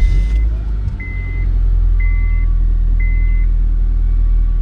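2003 Honda Civic's 1.7-litre four-cylinder engine just started and running steadily, the first start on a newly fitted fuel pump. A dashboard warning beeper sounds four times, about once a second.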